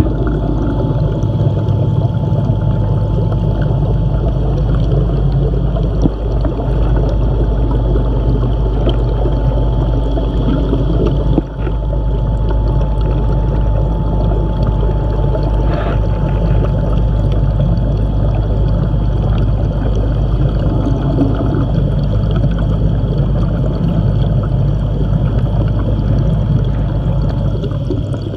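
Steady rushing, gurgling water noise with a low hum and a thin steady tone, heard muffled through an iPhone 7 microphone submerged in an aquarium: the tank's moving water as heard underwater. A couple of brief knocks stand out about halfway through.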